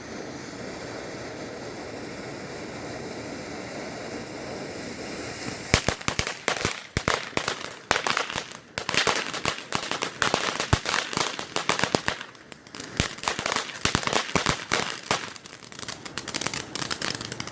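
Consumer firework going off in a fast, irregular string of sharp cracks and pops. It starts about six seconds in and keeps going, with brief gaps, after a steady background hiss.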